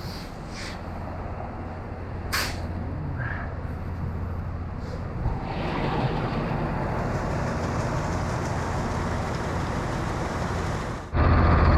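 Shovel scraping through shelled grain inside a steel grain bin, over the steady low hum of the bin's unload auger pulling grain down the centre sump. Near the end a much louder engine sound cuts in abruptly.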